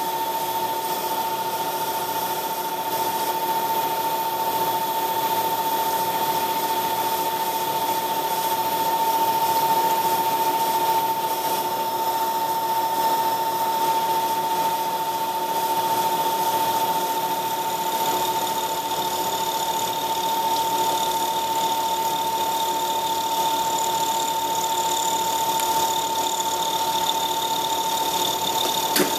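Small CNC milling machine thread-milling a four-start worm gear under a jet of coolant: the spindle runs with a steady whine over the cutting noise. A second, higher tone comes in about two-thirds of the way through.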